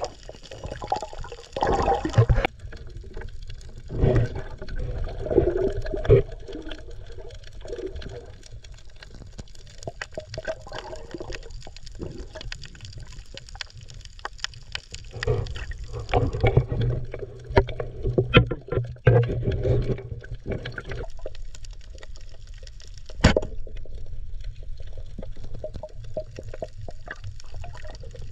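Water sloshing and gurgling heard underwater, muffled, with a low rumble that swells now and then and scattered clicks and knocks; one sharper knock stands out near the end.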